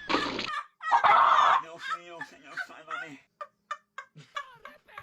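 A loud harsh squawk about a second in, then a run of short, rapid clucks from a chicken, a few per second, fading toward the end.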